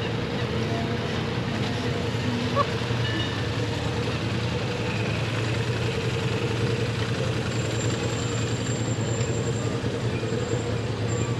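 Steady low engine hum over outdoor background noise.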